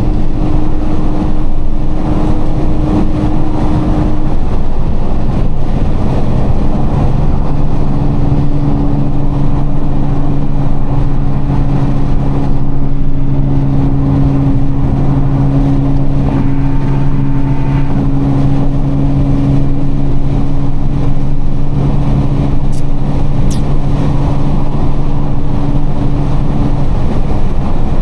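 Nissan GT-R R35's twin-turbo V6 heard from inside the cabin while cruising on a highway: a steady engine drone with tyre and road noise, holding an even pitch.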